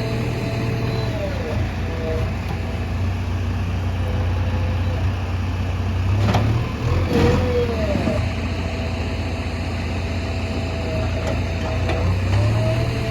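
Diesel engine of a JCB backhoe loader running steadily, its pitch sagging briefly and recovering a few times as it takes load. Two sharp knocks a little past the middle.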